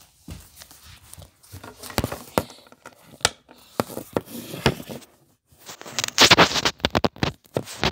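Handling noise of a handheld camera being moved about and covered: scattered clicks and knocks, with a loud stretch of fingers rubbing and scraping over the microphone about six seconds in.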